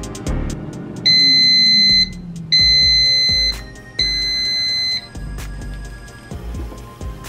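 Digital air fryer's end-of-cycle alarm: three long beeps at one steady pitch, each about a second, signalling the cooking timer has run out. Background music plays underneath.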